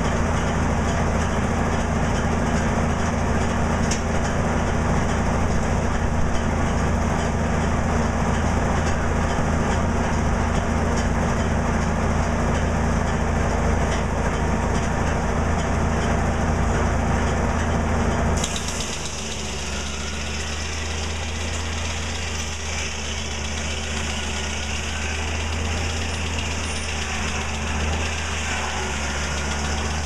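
Antique circular sawmill running, its power unit running steadily with the big blade spinning and not yet in the wood. About eighteen seconds in, the sound changes abruptly and becomes somewhat quieter, then runs on steadily.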